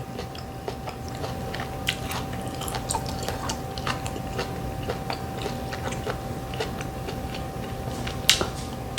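Close-miked chewing and mouth sounds of a person eating, with many scattered small wet clicks and smacks.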